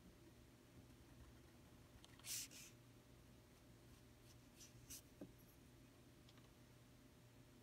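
Reed pen (qalam) scratching on paper as an ink stroke is drawn, heard as faint short scratches: a couple a little over two seconds in and a few more near five seconds. A low steady hum runs underneath.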